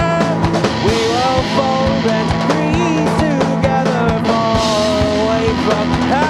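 Live rock band playing: drums hitting under a sustained low note, with guitar and melodic lines that slide in pitch.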